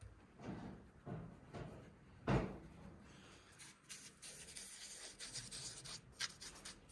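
Kitchen handling noises: a few soft knocks, the loudest about two seconds in, then a fast scratchy rubbing from about halfway through.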